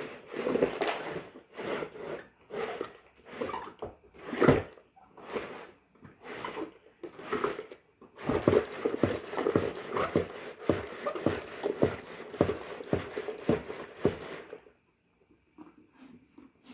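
Washing machine agitating a load with a stuffed toy in it: a rhythmic run of sloshing swishes, one every half second or so, that stops near the end.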